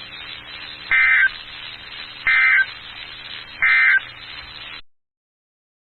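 Emergency Alert System end-of-message signal: three short bursts of data tones, about a second and a half apart, over the hiss and hum of a weather-radio broadcast. The bursts mark the end of the alert, and the audio cuts off about five seconds in.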